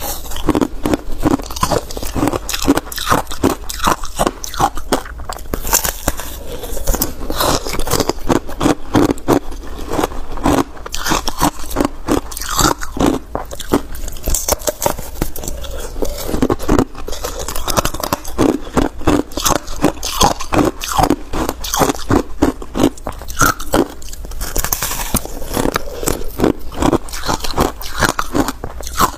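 Ice frozen with passion fruit pulp and seeds being bitten and chewed close to clip-on microphones, a steady run of sharp crunches several a second.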